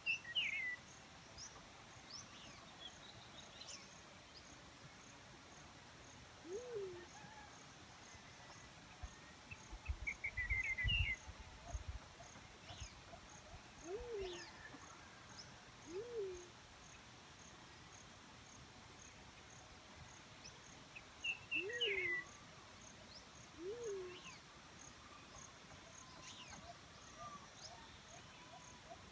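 Black-chinned fruit dove giving five short, low hooting notes, each rising and falling, spaced a few seconds apart. Behind it an insect ticks steadily at a high pitch about twice a second, other small birds chirp briefly near the start, about ten seconds in and near 22 seconds, and a brief low rumble comes about ten seconds in.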